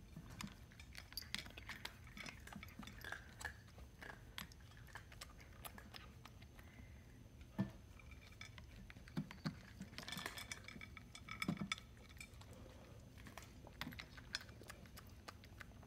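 A cat nosing a hollow plastic treat-dispensing ball around a glass dish while eating kibble: scattered light clinks and knocks of ball and kibble against the glass, with a busier cluster about ten seconds in.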